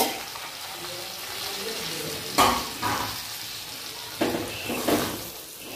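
Semolina sizzling softly in hot ghee in an aluminium kadai, stirred with a steel spatula that scrapes the pan a few times from about two and a half seconds in.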